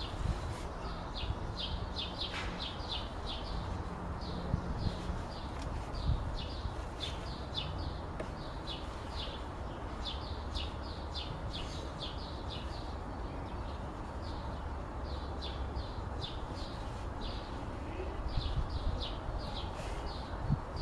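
A songbird chirping: runs of short, high chirps repeating several times a second, over a steady low background rumble.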